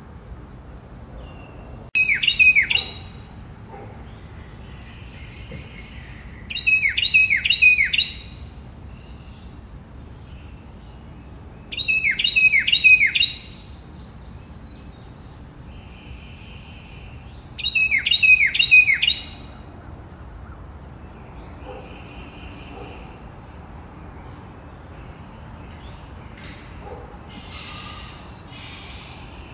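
A bird calling four times, about every five seconds, each call a quick run of three or four sharply falling whistled notes, over a faint steady high insect drone.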